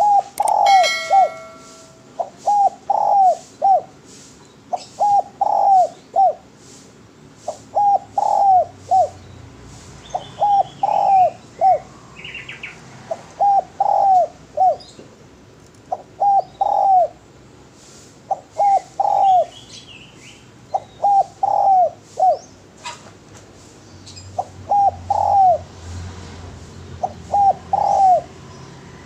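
Spotted dove (derkuku) cooing: a short phrase of three or four coos, repeated about every two and a half seconds. Faint chirps of other birds sound between the phrases.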